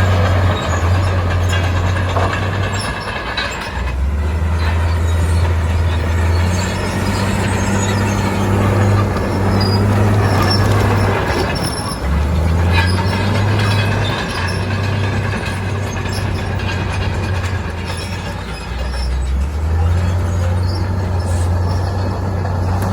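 Heavy diesel construction machinery, bulldozer and dump truck, running continuously. The engine note shifts up and down every few seconds with changing load, over scattered squeaks and clanks of working metal.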